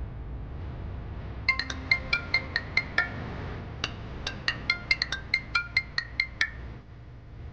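Mobile phone ringtone for an incoming call: a marimba-like melody of quick, short notes starting about a second and a half in, played through twice with a brief pause between.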